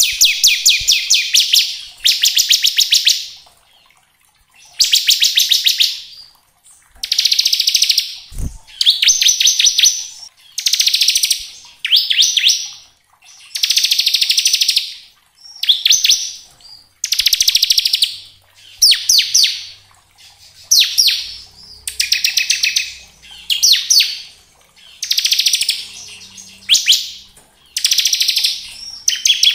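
Bar-winged prinia (ciblek) singing its buzzing 'ngebren' trill: a very rapid, high rattling song in bursts of about a second, repeated over and over with short pauses.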